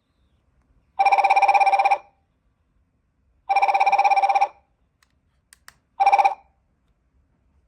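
G63 smart light sound machine's alarm ringing: an electronic phone-style trill in two bursts of about a second each, then a short third burst that is cut off. A couple of faint clicks come just before the last burst.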